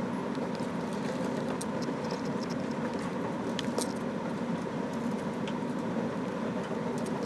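Light, irregular clicks and taps over a steady background hum.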